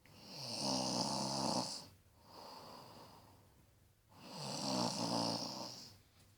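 A woman snoring in her sleep: two loud snores about four seconds apart, each lasting nearly two seconds, with a quieter breath between them.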